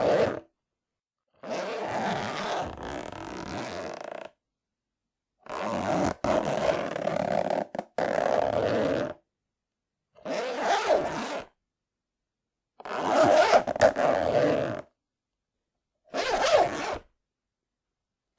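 The zip of a zip case being pulled open and closed, a rasping run of zipper teeth in separate strokes of about one to three seconds, with silence between strokes.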